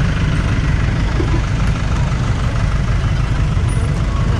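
Motorcycle and scooter engines idling close by, a steady low rumble, while traffic waits at the closed level crossing.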